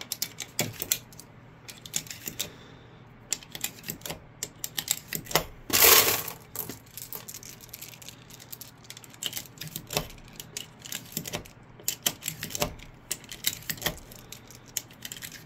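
UpLULA magazine loader clicking as 9mm cartridges are pressed one after another into a Glock 17 magazine, with the brass rounds clinking against the loader and each other. There is one louder rattle about six seconds in.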